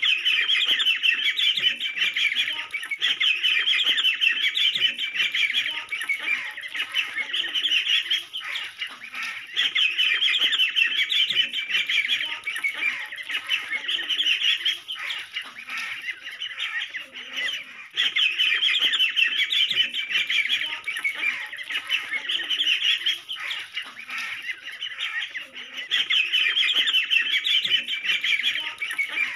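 A brood of ducklings peeping together: a dense, high-pitched chorus of many overlapping short calls that swells louder and dips back every few seconds.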